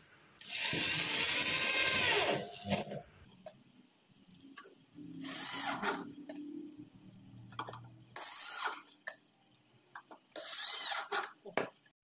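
Corded electric drill with a screwdriver bit driving wood screws through a drawer lock into 18 mm plywood. The motor whines in four runs: the first, about two seconds long, is the loudest, and three shorter ones follow.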